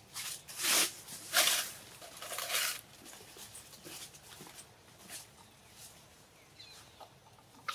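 Long-tailed macaques giving three short, harsh calls in the first three seconds, followed by fainter scattered monkey sounds.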